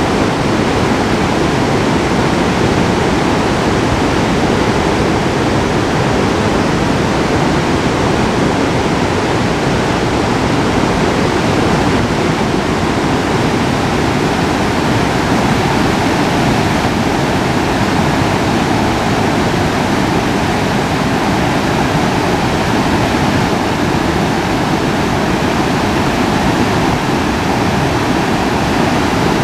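Rushing of the Iruma River in flood, muddy water running fast and heavy after a typhoon: a loud, steady roar of water with no letup.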